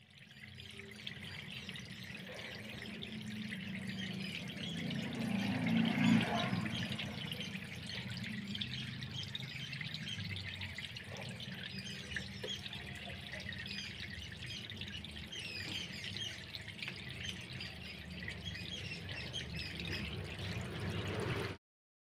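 Water trickling and splashing steadily, with a low hum underneath; the sound cuts off suddenly near the end.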